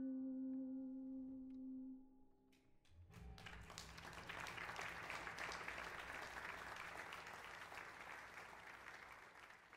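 The last held chord of background music fades out. About three seconds in, applause starts and runs on, thinning toward the end.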